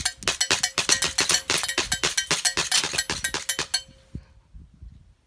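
ICS BLE XAE gas blowback airsoft pistol firing a rapid string of shots, about six a second, which stops about four seconds in, with one last shot a moment later. A faint steady ringing tone sits under the shots.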